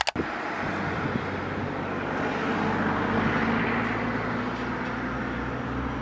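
Steady outdoor background noise with a faint low hum, starting abruptly at a cut.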